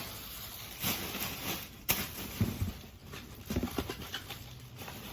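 Cardboard packaging being handled and opened: irregular rustles, scrapes and knocks, with one sharp click about two seconds in.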